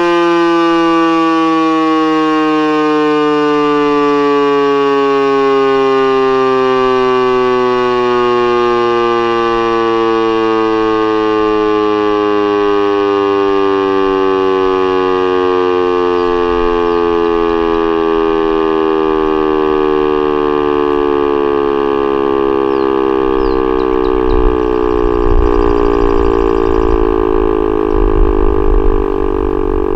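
ASC T-112 electronic outdoor warning siren sounding its steady Alert signal: a loud multi-tone wail whose pitch glides slowly and steadily downward.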